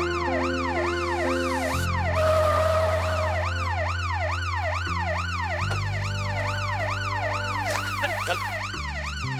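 Police vehicle siren wailing rapidly up and down, about two and a half cycles a second, over steady low music chords. A whoosh with a short tone comes about two seconds in and is the loudest moment.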